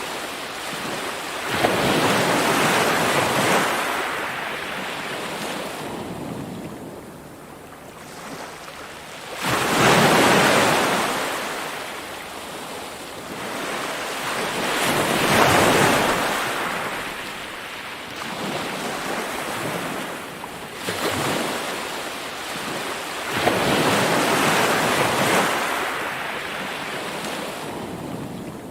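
Ocean waves breaking and washing ashore: four surges swell up and slowly die away, one every six to eight seconds, the second one the loudest.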